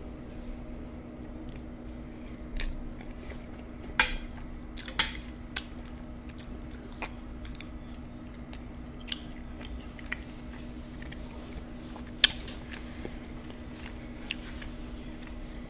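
Close-miked chewing of a mouthful of deep dish supreme pizza: soft, wet chewing with sharp mouth smacks and clicks, the loudest a few about four and five seconds in and another near twelve seconds.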